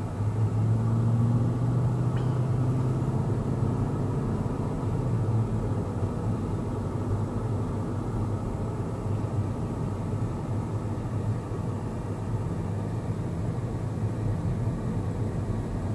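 A car driving, heard from inside the cabin: a steady low hum of engine and road noise, a little louder in the first few seconds.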